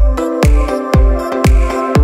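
Electronic dance background music with a steady kick drum about twice a second, deep bass under each beat and sustained synth chords.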